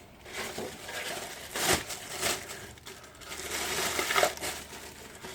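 The little drip tray of a Weber 2000 gas barbecue being handled and fitted underneath the grill: scraping and rattling with light clicks, and a sharp click about a second and a half in.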